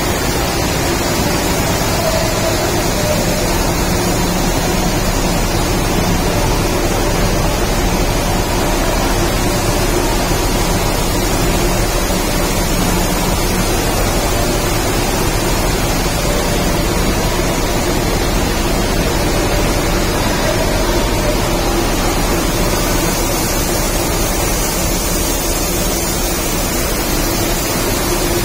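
Steady, loud machinery din of a running automatic rice mill, its motors, blowers and grain flow blending into one even rush with a low hum and a few faint steady tones.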